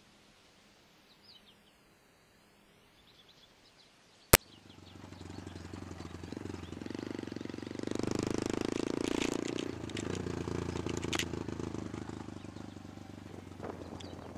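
Small motorcycle engine running as the bike travels along a dirt forest track, swelling in about five seconds in, loudest in the middle and fading near the end. Before it, faint birds chirping, and a single sharp click about four seconds in.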